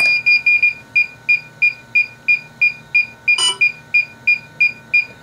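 Electronic beeping from a DJI Avata drone in linking mode while it pairs with the goggles: a long beep at the start, then a steady run of short, high beeps about three a second. A single click comes about three and a half seconds in.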